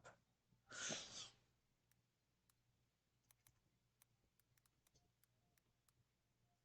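Near silence: a short breathy exhale about a second in, then faint scattered clicks.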